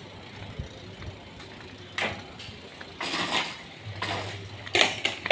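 Ticking and clicking of a new bicycle's freewheel and parts as it is wheeled along, with a few louder rattles about two, three and nearly five seconds in.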